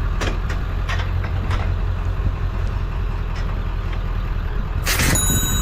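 Pickup truck engine idling steadily, with a few light knocks of metal, then one loud metal clang about five seconds in as steel bed rails land in the truck, ringing briefly afterwards.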